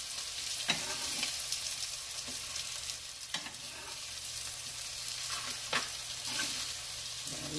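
Burger patties sizzling steadily on a stovetop griddle. A few sharp clicks and scrapes come from a metal spatula lifting the patties off the griddle.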